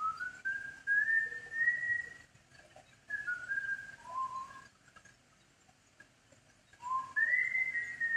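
A person whistling a slow tune in long held notes, opening with a rising glide, with a pause of about two seconds between phrases.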